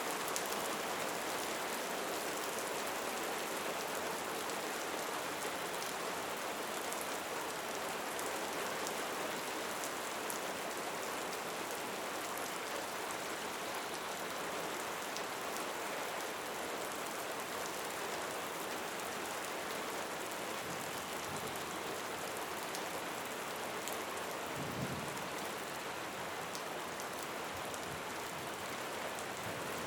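Steady rain falling, an even hiss with individual drop ticks scattered through it, and a brief low thump near the end.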